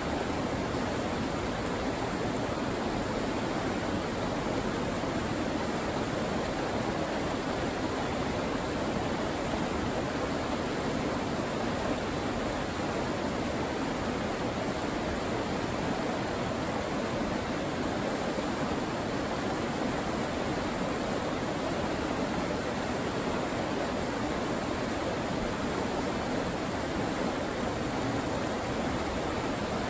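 River rapids rushing steadily over rocks, an unbroken roar of whitewater.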